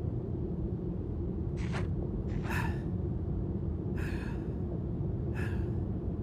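A person breathing heavily in four short gasping breaths, roughly a second or more apart, over a steady low rumble.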